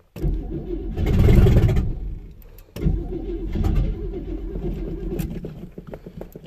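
1973 GMC C10 engine cranked over by the starter from a cold start with no choke, its exhaust open at the manifolds. There is a brief louder burst about a second in, and after a short dip near the middle the cranking goes on in an even rhythm.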